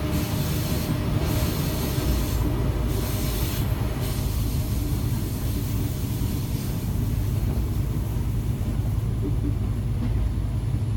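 Diesel railbus running along the line: a steady low rumble of engine and wheels, with a hissing high noise that comes and goes in the first few seconds, then eases.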